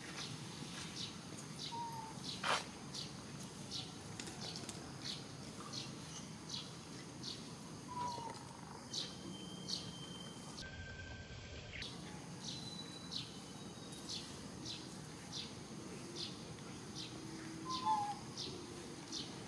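Small birds chirping: short high chirps repeated evenly, about one to one and a half a second, with a few brief whistled calls. There is a single sharp click about two and a half seconds in.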